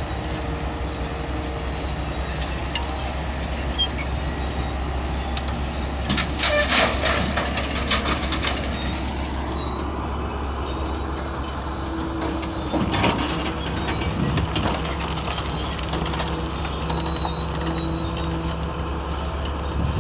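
Heavy vehicle engine running steadily, with loud bursts of hiss about six seconds in and again around thirteen seconds, and a whine rising in pitch between them.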